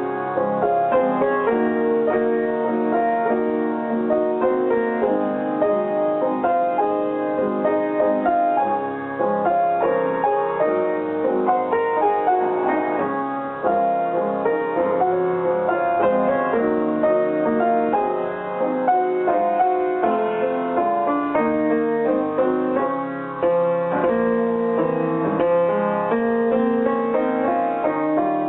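Piano music: a steady, dense run of notes.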